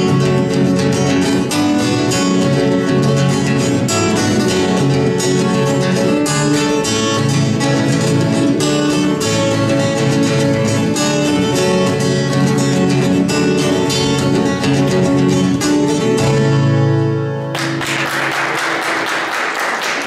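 Two acoustic guitars, one of them a twelve-string, strummed together in a lively instrumental passage that ends about three-quarters of the way through. It is followed by audience applause.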